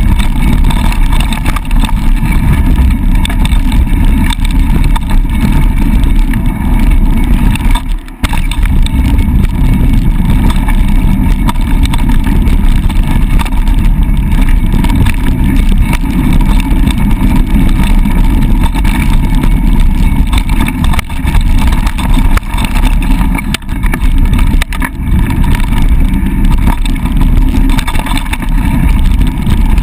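Mountain bike descending a gravel trail at speed, heard through a handlebar-mounted action camera: loud, steady wind rumble on the microphone mixed with tyre noise and rattle over the loose surface, dropping away briefly about eight seconds in.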